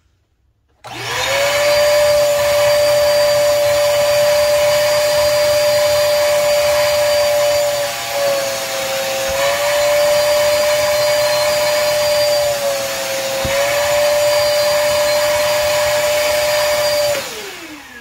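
Koblenz WD-2.5 L 2.5-gallon wet/dry shop vacuum switched on about a second in, its motor spinning up to a steady high whine while the nozzle works over a carpet floor mat. The pitch dips briefly twice, and near the end the vacuum is switched off and winds down with a falling pitch.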